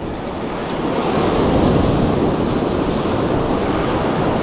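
Surf breaking and washing up the beach, growing louder over the first second or so, with wind rumbling on the microphone.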